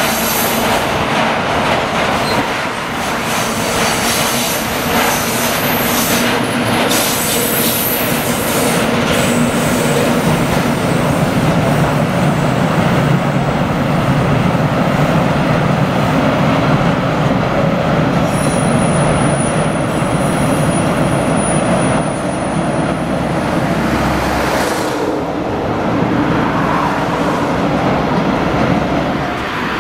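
Freight train rolling along the rails, a steady loud rumble with a high-pitched wheel squeal about a quarter of the way in and again past the middle.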